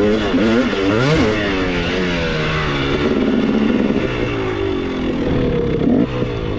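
Dirt bike engine revving up and down with the throttle while riding, its pitch rising and falling again and again, heard from on the bike.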